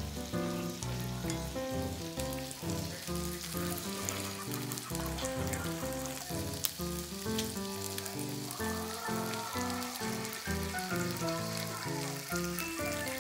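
Yakitori skewers sizzling on an electric hot plate, with scattered pops, under background music that plays a simple note-by-note tune.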